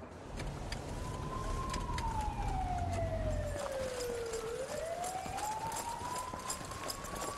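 Police siren in a slow wail, falling in pitch for about three seconds and then rising again, over vehicle rumble in the first half. Running footsteps tap through the second half.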